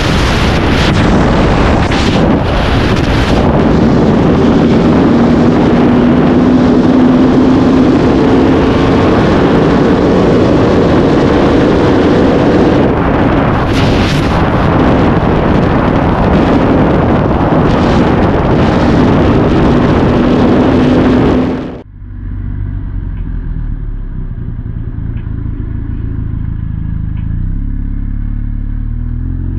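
Sportbike at very high speed on a highway: heavy wind rush on the helmet-camera microphone, with the engine's steady drone beneath it. About three quarters of the way through, it cuts to a duller recording of a motorcycle engine that climbs in pitch near the end as the bike accelerates.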